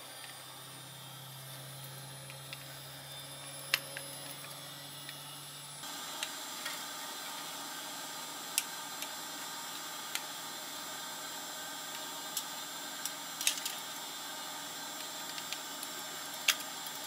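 Scattered sharp metal clicks and taps of pliers gripping and prying at the pressed-steel frame of a fridge thermostat, about eight in all, over a steady hiss that gets louder about six seconds in.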